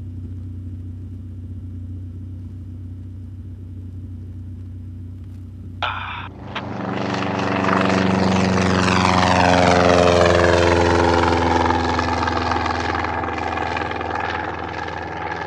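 A steady low drone heard inside a light plane's cockpit, then a single-engine propeller plane passing close by under power: its engine and propeller note swells, is loudest about ten seconds in, and falls steadily in pitch as it goes past.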